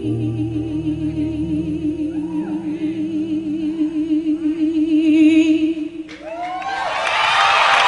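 A woman's solo voice holding one long sung note with a wide vibrato, over a few soft low accompanying notes at first. About six seconds in the note ends and the audience breaks into applause.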